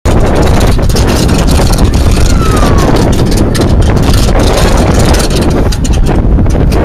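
Strong wind buffeting the microphone: a continuous loud rumbling rush.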